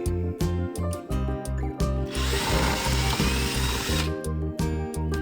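Power drill fitted with a small tile bit, run in reverse to back out a painted-over cabinet hinge screw. It spins for about two seconds in the middle, over background music with a steady beat.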